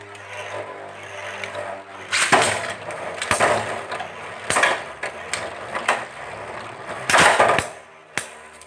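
Two metal-wheel Beyblade spinning tops grinding around a plastic stadium, with several sharp clashes as they strike each other, the loudest cluster near the end.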